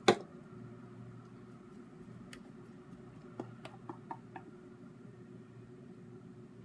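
A sharp knock right at the start as the glass holding the piping bag is handled on the counter. Then a few faint light ticks of a spatula against a stainless steel bowl as cake batter is poured into the piping bag, over a steady low hum.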